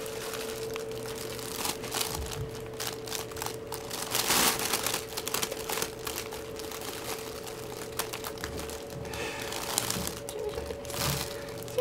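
Crinkly fabric cat tunnel rustling and crackling in irregular bursts as a cat shifts against it while being petted, louder for a moment about four seconds in, over a steady faint hum.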